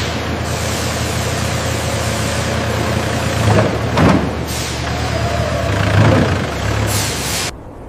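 Steady low mechanical hum with several short bursts of hissing air, cutting off abruptly near the end.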